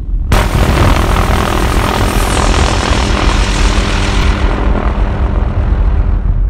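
Steady low engine rumble from the camera aircraft, with a sudden loud rush of wind noise about a third of a second in that fades slowly over the next five seconds.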